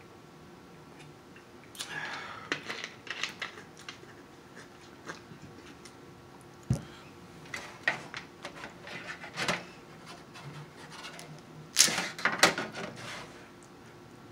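Cooked crab leg shells being cracked and snapped apart by hand: several bursts of sharp crackles and clicks, with one single snap partway through and the loudest cracking near the end.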